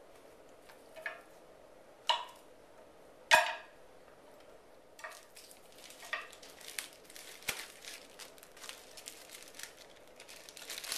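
A knife cutting bananas in half knocks against a wooden cutting board three times, the third knock the loudest. Then thin plastic zip-top bags crinkle and rustle as banana halves are put into them, busier near the end.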